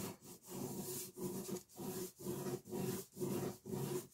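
Ballpoint pen scratching over paper in quick circular sketching strokes, a soft rhythmic rasp of about two strokes a second.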